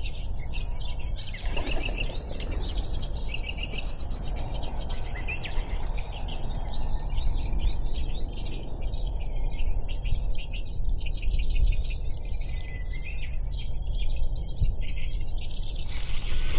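Small birds chirping and twittering, with many quick short calls overlapping, over a steady low rumble. Just before the end, a brighter, fuller hiss sets in.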